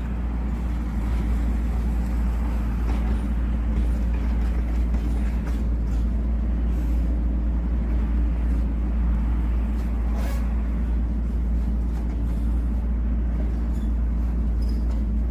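An engine running steadily with a constant low drone, with a faint click or knock now and then.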